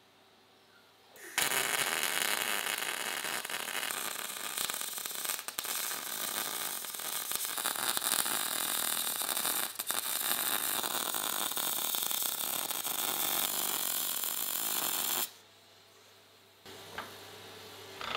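MIG welding arc crackling steadily as a bead is run on a metal tube; it starts about a second and a half in, breaks off for a moment twice, and cuts off about three seconds before the end. A faint knock or two follow near the end.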